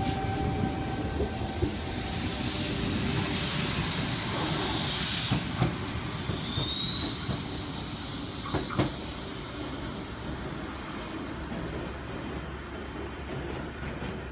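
Sydney Tangara electric train pulling away from the platform and running past. It starts with a rising motor whine and a rush of wheel and air noise. There are clunks of the wheels over rail joints and a high, rising squeal about halfway through, then it dies down to a low rumble as the train leaves.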